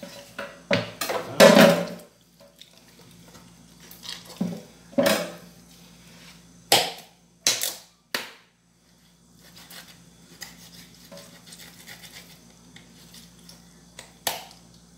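Kitchen knife chopping and cutting through a raw chicken's joints on a wooden cutting board. There is a burst of clatter in the first two seconds, then several separate sharp knocks of the blade against the board, over a steady low hum.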